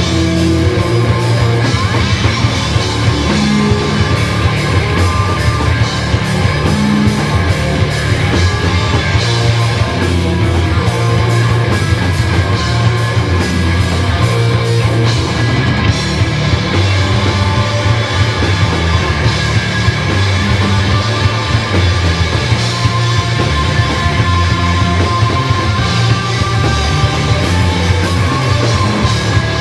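Live rock band playing loudly: distorted electric guitars over a pounding drum kit, in a fast, driving rhythm.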